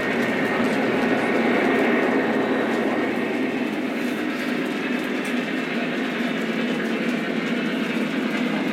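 Lionel O-gauge model trains running on the layout track: a steady rolling rumble of wheels on rail, slightly louder in the first two seconds as a freight train passes close by.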